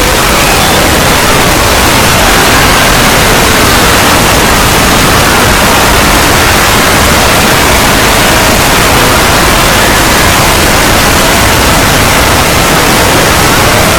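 A loud, steady wall of static-like noise, with many faint overlapping screams rising and falling in pitch inside it.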